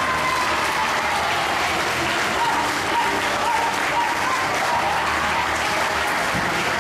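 Audience applauding steadily, with a few voices calling out among the clapping.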